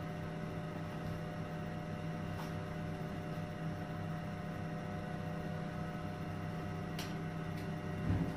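Steady hum of room equipment: several steady tones over a low drone. A few faint clicks sound over it, two of them about seven seconds in, and a brief low thump comes near the end.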